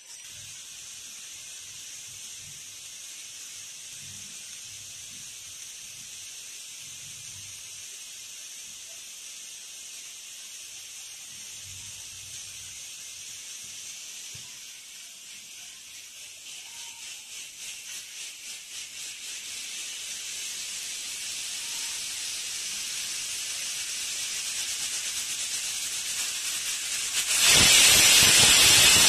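Pressure cooker's weight valve hissing with escaping steam. The hiss grows slowly louder as pressure builds and flutters in pulses for a few seconds, then near the end it bursts into a loud steam blast: the cooker's whistle, the sign that it has reached pressure.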